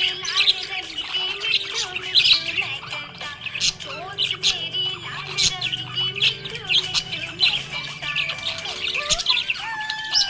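Budgerigars chirping and warbling continuously, a dense run of quick, high twittering calls.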